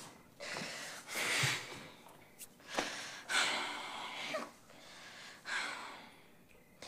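A teenage boy crying, drawing several ragged, gasping breaths, each a rush about a second long.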